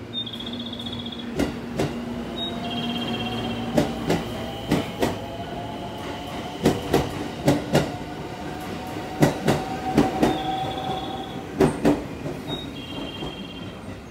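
JR West 223 series 100-subseries electric train pulling out and gathering speed, its Toshiba GTO-VVVF inverter whining in tones that step and rise in pitch. The wheels click in pairs over the rail joints as the cars pass.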